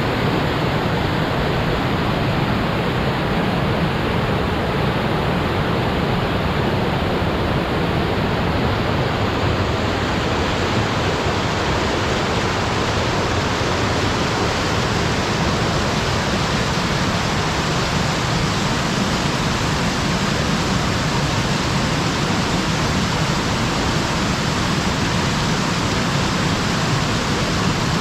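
Waterfall: a steady, loud rush of falling water, turning brighter and more hissy about ten seconds in.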